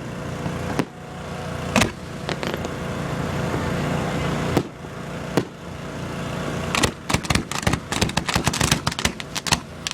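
Fireworks going off: a few single sharp bangs spaced a second or more apart, then from about seven seconds in a dense run of rapid crackling bangs, over a steady low hum.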